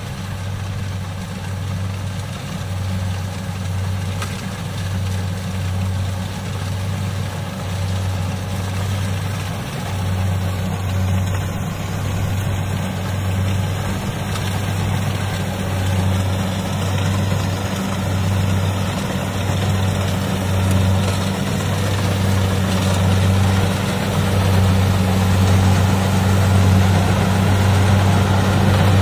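Kubota DC-70 combine harvester running steadily with its diesel engine and threshing machinery as it cuts rice, a deep even hum that grows gradually louder as the machine comes closer.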